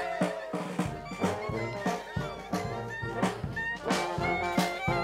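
Street-style brass band playing a lively tune, with trombone and other horns over a steady beat from a bass drum.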